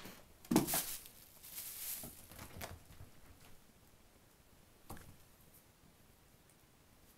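A kitten scrambling on a quilted blanket: a sharp thump about half a second in, a short stretch of rustling, then a few light taps.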